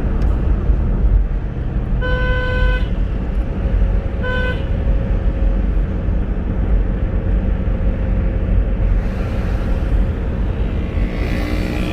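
Car horn tooting twice, a longer blast about two seconds in and a short one about four seconds in, over the steady low rumble of a car driving through town traffic.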